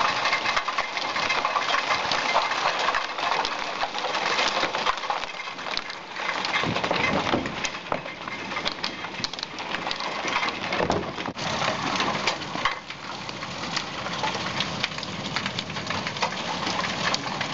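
Hailstones pelting down onto a stone terrace and balustrade during a severe hailstorm. It is a dense, continuous clatter of hard clicks over a hiss of falling ice and rain.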